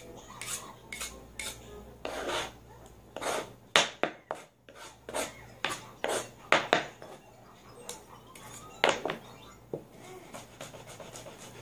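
A kitchen knife scraping and knocking on a plastic cutting board in irregular strokes, with several sharper knocks in the middle and one near the end.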